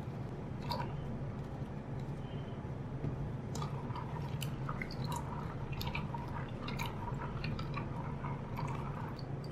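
A hand swishing and rubbing a bowlful of lotkon fruits in water: faint scattered clicks, squelches and small splashes as the wet fruits knock and rub together.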